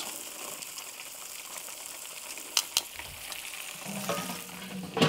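Melted butter sizzling steadily in foil boats of corn on the cob over hot charcoal in a kettle grill, with two light clicks about two and a half seconds in.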